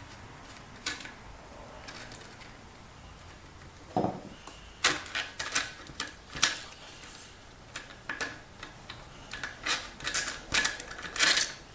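Irregular sharp clicks and clacks of hand tools and small parts being handled during a small-engine teardown. There are a few early on, then a busy run of clicks from about four seconds in.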